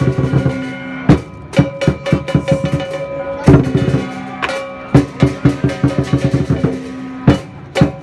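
Chinese lion dance percussion: a drum beaten in fast runs with heavy accents every second or two, with clashing cymbals ringing on between the strikes.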